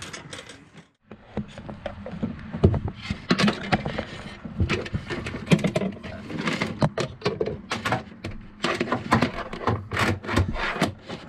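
Scraping, rustling and many irregular sharp clicks of electrical wire being handled and fed through a gap in a boat's cabin ceiling, over a steady low hum. A brief silent gap about a second in.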